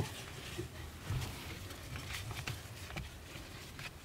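Harness strap webbing being handled and pulled: faint rustling with a few light knocks.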